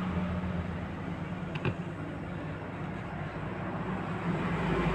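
Power amplifier's speaker giving a steady low hum over hiss, with a couple of faint clicks about one and a half seconds in while its front-panel knobs are turned.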